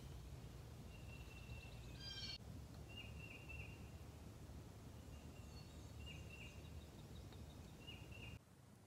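Faint songbirds singing: repeated high whistled notes and short chirps over a low steady rumble. The sound cuts abruptly to quieter near the end.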